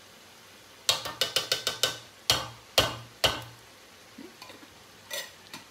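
Wooden spoon knocking and scraping against a metal can while chili beans are spooned out into a pot: a quick run of clicks, then three louder knocks about half a second apart.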